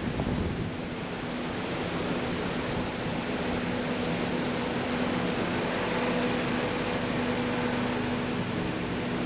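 Steady noise of a car driving, heard from inside the cabin, with an even low hum running under it.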